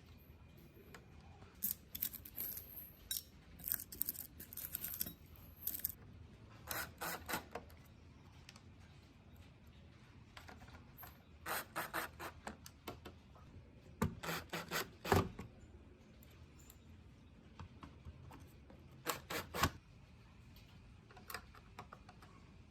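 Quick rubbing strokes on a hard surface, coming in several short bursts with pauses between.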